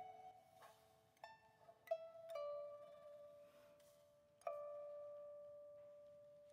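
Pipa (Chinese four-stringed lute) played softly in a sparse passage: a handful of single plucked notes, the last ringing out and fading slowly over the second half.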